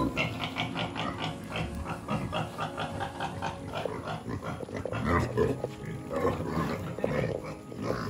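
Domestic pig grunting in a quick, uneven run of short grunts.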